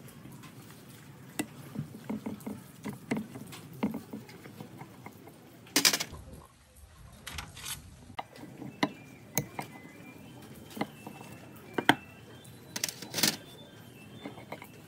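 Tools and metal parts clicking and knocking against each other during hand work, in irregular sharp strikes with a few louder knocks.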